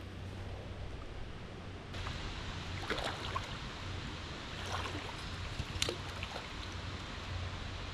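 Shallow stream water running steadily, growing louder about two seconds in, with a few brief splashes about three, five and six seconds in.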